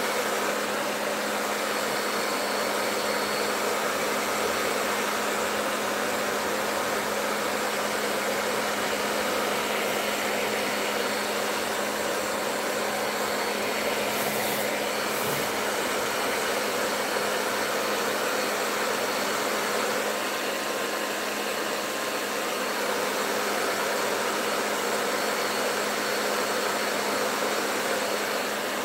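Handheld hair dryer running steadily: a constant rush of air over a low motor hum.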